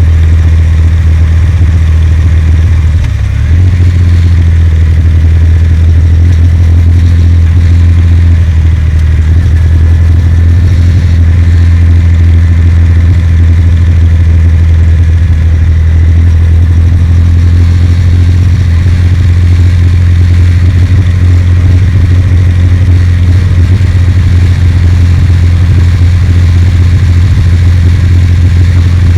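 Kawasaki W800's air-cooled parallel-twin engine running steadily under way, with a brief dip and change in pitch about three seconds in.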